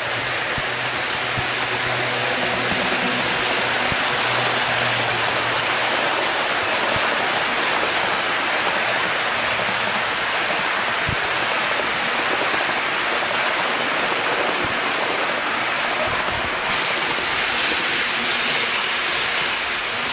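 HO-scale model container train behind an EH500 locomotive model rolling along the track: a steady rushing rumble of metal wheels on the rails. The sound shifts about three-quarters of the way through, taking on a higher, thinner edge.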